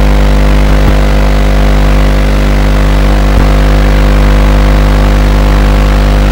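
QAV210 racing quadcopter's four brushless motors spinning at idle while it sits on the ground: a loud, steady hum.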